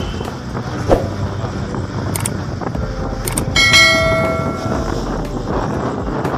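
Steady noise of a motorboat under way, engine with wind and water, and about three and a half seconds in a single bright, bell-like metallic ring that fades over about a second.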